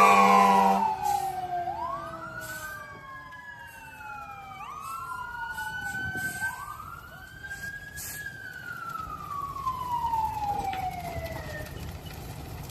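Emergency-vehicle siren wailing, its pitch rising and falling in slow sweeps. It follows a loud, steady multi-tone blast that cuts off about a second in.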